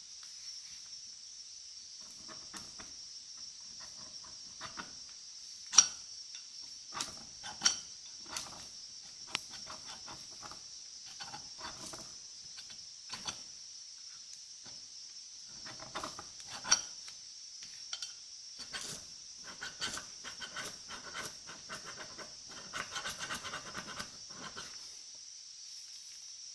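Metal parts and hand tools being handled and set down: irregular sharp clicks and clinks, the loudest about six seconds in, with a few seconds of rubbing and scraping near the end, over a steady high hiss.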